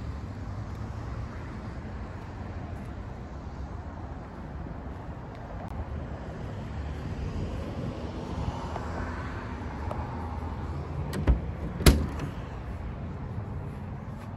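Steady rumble of road traffic, then two sharp clicks about half a second apart near the end: the cab door latch of a classic Volkswagen bus single-cab pickup being opened.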